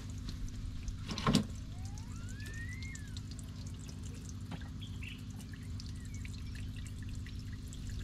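Water trickling and dripping over a steady low rumble, with one short knock about a second in and a faint whistle that rises and then falls a couple of seconds in.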